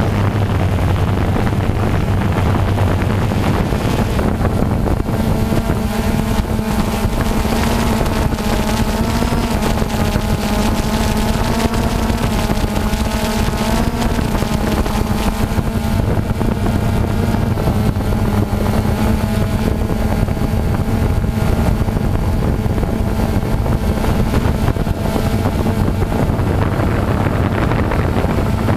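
Quadcopter drone's electric motors and propellers running, a steady buzzing hum whose pitch wavers slightly as the craft flies.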